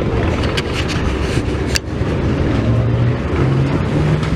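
Engine running with a loud low rumble; its hum steps up in pitch a few times in the second half, and a few sharp clicks sound in the first two seconds.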